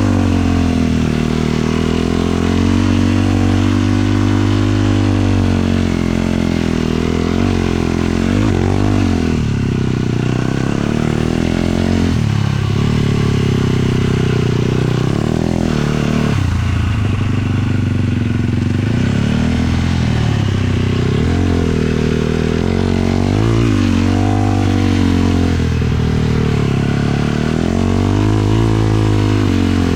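Single-cylinder four-stroke 450 sport quad engine running under way. Its revs rise and fall repeatedly as the throttle is worked, with short drops off the throttle about twelve and sixteen seconds in.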